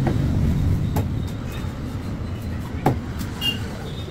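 Knife cutting a large fish into steaks on a wooden log chopping block, with two sharp knocks as the blade strikes the wood about two seconds apart, the second louder. A steady low rumble runs underneath.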